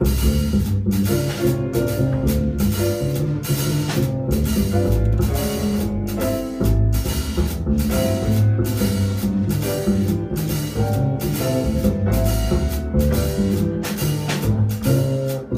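Jazz piano trio playing live: piano, upright double bass and drum kit, with the bass notes prominent and a steady run of cymbal and drum strokes.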